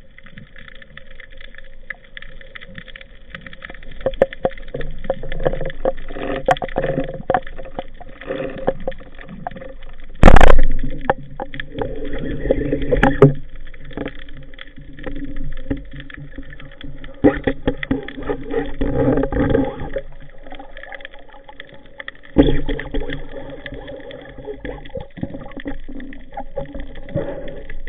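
Underwater sound picked up by a diver's camera in its waterproof housing: a steady water noise with scattered clicks and knocks from gear handling. There is one very loud thump about ten seconds in, and further strong knocks near thirteen and twenty-two seconds.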